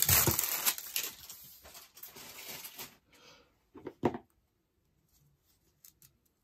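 Plastic wrapping crinkling as a rolled diamond-painting canvas is handled, dying away about three seconds in, then two soft knocks about four seconds in.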